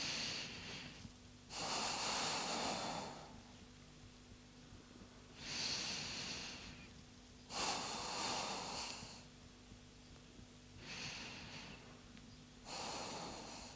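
A woman's slow breathing, faint, about six breaths in and out, each lasting a second or so with short pauses between, as she holds a deep side stretch.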